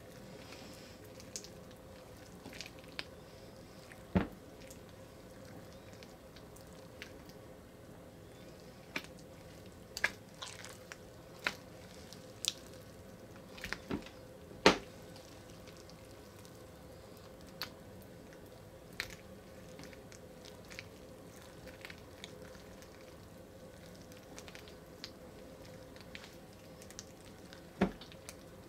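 A hand squeezing and kneading wet, clear slime full of Orbeez water beads in a glass bowl. It makes scattered sticky squelches and sharp wet pops, the loudest a little before the middle.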